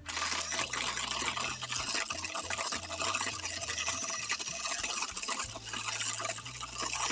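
Electric hand mixer running, its beaters whisking thick cake batter of margarine, sugar and egg in a stainless steel bowl. A loud, steady whirring and churning starts abruptly, with a fine rattle of the beaters against the batter and bowl.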